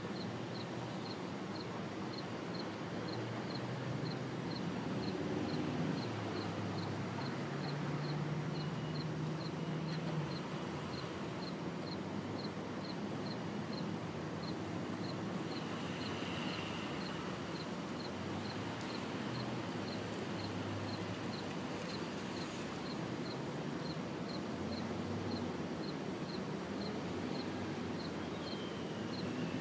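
Steady outdoor background noise, with an engine rumbling low for several seconds in the first third. A faint high-pitched chirp repeats about twice a second throughout.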